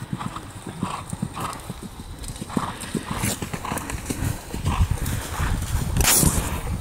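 Horse cantering on a grass cross-country course, its hoofbeats thudding in a steady rhythm. A low rumble builds under them from about two-thirds of the way through.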